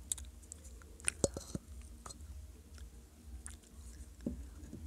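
Unglazed baked clay pot being bitten and chewed right at a microphone: a string of sharp, dry crunches and cracks, the loudest cluster a little over a second in.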